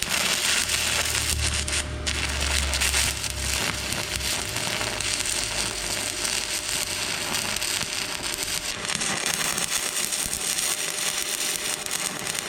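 Stick-welding arc burning a 7018 low-hydrogen rod: a steady, dense crackle as a weld bead is run without a break. A low hum from the welding machine sits under it for the first few seconds.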